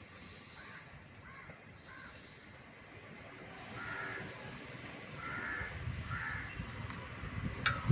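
A bird calling in a series of short caws, several of them, with the later calls louder. Low knocking and handling noise builds near the end, and a sharp click comes just before the end.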